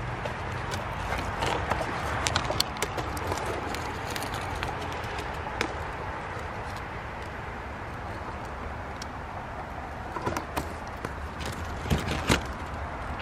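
Steady outdoor background noise with scattered sharp taps and clicks, in a cluster about two seconds in and another near the end.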